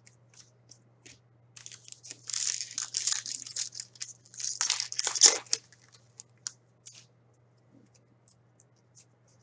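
A hockey card pack's wrapper being torn open and crinkled, in two bursts about two and five seconds in, followed by a few faint clicks as the cards are handled.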